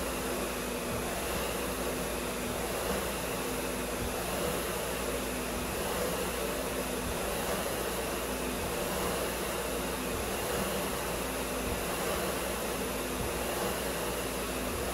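Concept2 SkiErg's air-resistance flywheel fan whirring steadily, surging about once a second with each double-pole pull on the handles.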